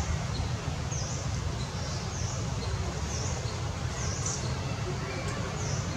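Outdoor ambience: a steady low rumble with a short, high chirp repeating about once a second.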